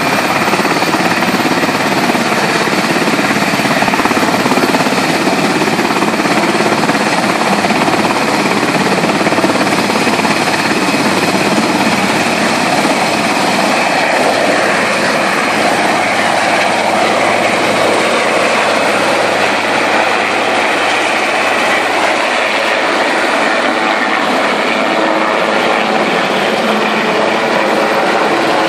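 Westland Sea King Mk 41 helicopter, with its twin Rolls-Royce Gnome turboshafts and main rotor at take-off power, lifting off and climbing overhead. The loud engine and rotor noise is steady throughout.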